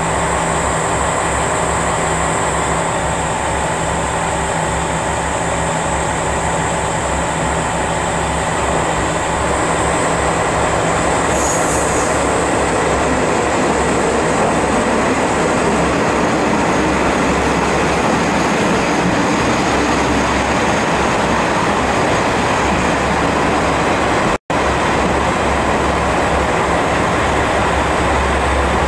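JR West KiHa 47 diesel railcar pulling into the platform, running steadily and growing louder about a third of the way in as it draws alongside. The sound drops out for an instant near the end.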